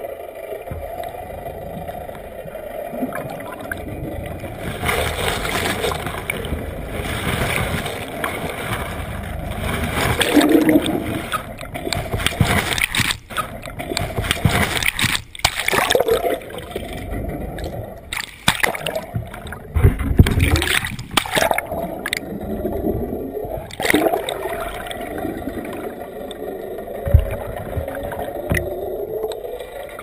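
Water sloshing and gurgling around an underwater camera close to the surface, with a run of splashes in the middle as it nears or breaks the surface. A steady mechanical hum runs underneath.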